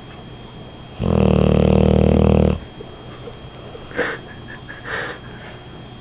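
A 10-month-old English Mastiff snoring in her sleep. One loud, rattling snore starts about a second in and lasts about a second and a half. Two softer, short breaths follow.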